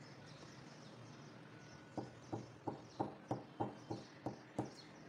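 Glass bowl of freshly poured mango pudding knocked down on the table again and again, about nine sharp knocks at roughly three a second, starting about two seconds in, to settle the mixture in the bowl.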